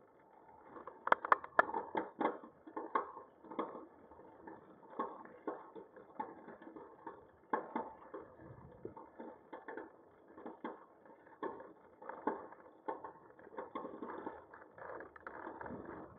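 Muffled, irregular clicks and rattles, with several sharp ones close together about a second in, as a bicycle and its mounted action camera jolt over a rough road surface.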